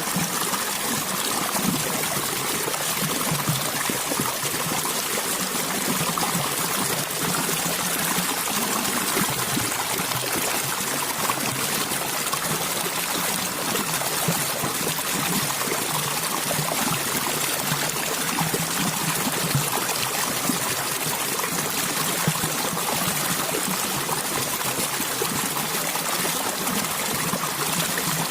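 Stream water flowing and trickling steadily, an even rushing splash with no break.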